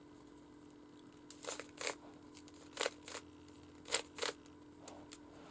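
Plastic Rubik's cube faces being twisted by hand: three quick pairs of clacks about a second apart, over a steady low hum. The paired turns fit the faces being given half-turns ('twice around') to build a checkerboard pattern.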